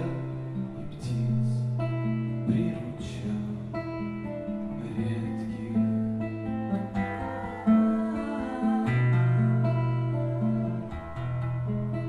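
Acoustic guitar playing an instrumental interlude: chords over held bass notes, with no singing.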